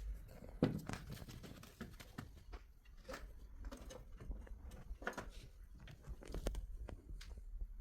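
Irregular light knocks, clicks and scrapes of small parts and tools being handled during starter motor repair work, the sharpest knock about half a second in.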